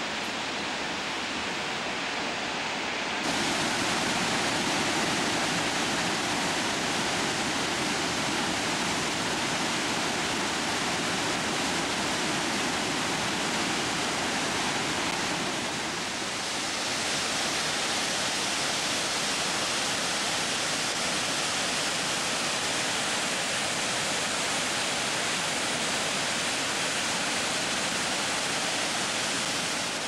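Krimml Waterfalls: a steady rushing roar of heavy falling water. It jumps suddenly louder about three seconds in and shifts slightly in tone about halfway through.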